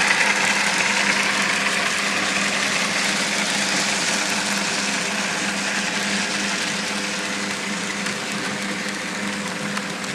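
Electric model train running along the track: a steady whir of the small motor with wheel-on-rail hiss, slowly getting a little quieter.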